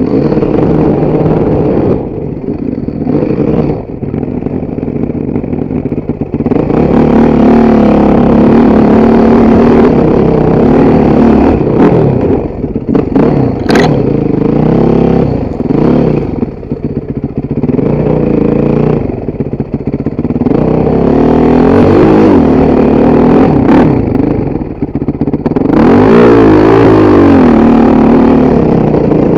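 Motorcycle engine revving up and down under changing throttle while riding off-road, louder from about six seconds in, with one sharp knock near the middle.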